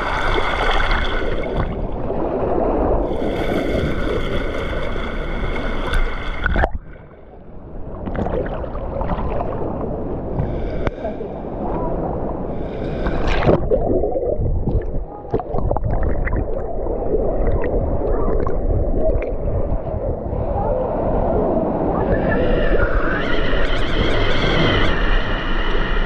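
Rushing, churning water in a water park's wild-river channel, heard at the water's surface. About seven seconds in the sound turns muffled and gurgling, heard from underwater, and it opens out again to bright splashing a few seconds before the end.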